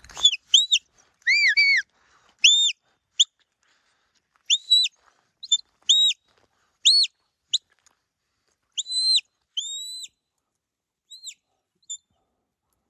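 Shepherd's whistle giving herding commands to a working sheepdog: a run of short, clear, high notes, some swooping up and down and others held flat, in uneven groups with short gaps between.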